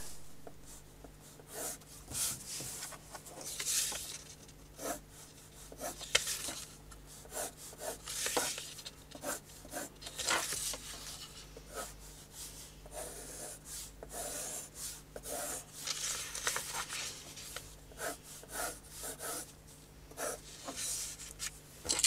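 Graphite pencil drawing lines on paper: a series of short, irregular scratchy strokes.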